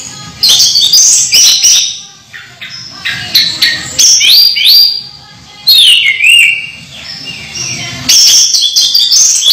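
Caged orange-headed thrush singing: loud bursts of rapid, varied whistled phrases with quick rising and falling sweeps, broken by short pauses, over a faint low hum.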